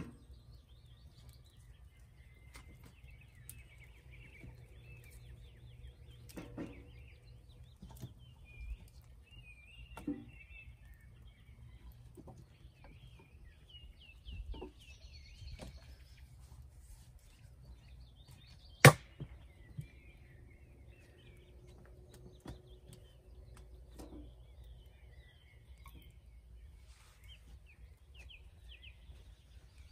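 Sticks being handled and laid on a campfire: scattered light knocks and cracks of wood, with one sharp, much louder crack about two-thirds of the way through. Birds sing in the background.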